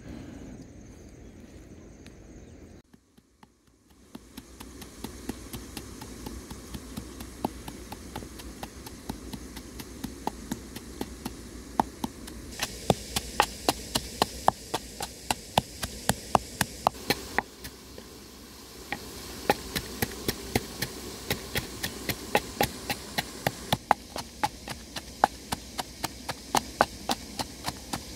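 Wooden pestle pounding chilies in a wooden mortar, sharp knocks about two to three a second, beginning about four seconds in and getting louder partway through.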